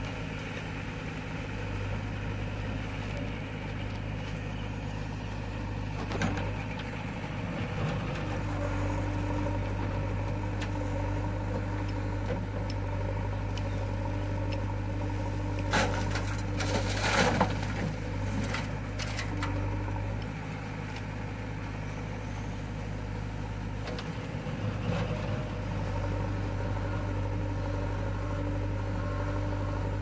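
Diesel engine of a JCB 3DX backhoe loader running steadily under digging load. A few sharp metal clanks and rattles, clustered about halfway through, as the backhoe bucket swings over the tractor trolley and dumps its soil.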